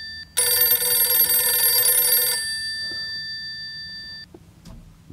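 Phone ringing with an old-style telephone-bell ringtone. One burst of ringing starts about a third of a second in and lasts about two seconds, then its tones die away over the next two seconds.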